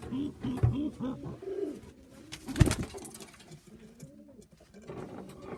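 Racing pigeons cooing, a run of repeated low rising-and-falling coos that thins out after about two seconds. A single sharp knock about two and a half seconds in.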